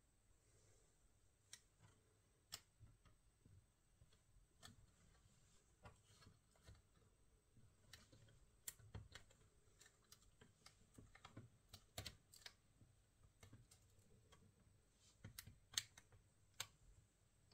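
Light, irregular clicks and taps on a laptop, a few a second, with one sharper click near the end.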